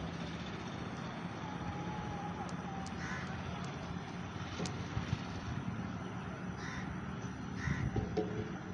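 Crows cawing a few times, the calls spaced apart, over a steady background hum of road traffic.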